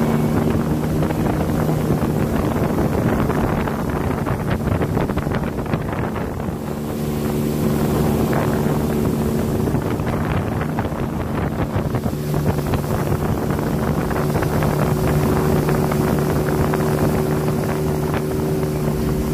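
Sea-Doo GTI LE personal watercraft running under way with a steady engine note. It eases off briefly about six seconds in, then picks back up, with wind rushing on the microphone.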